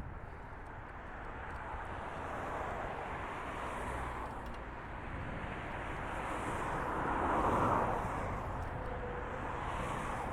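Street traffic noise, a steady rush that swells as a vehicle passes, loudest about seven to eight seconds in, then eases.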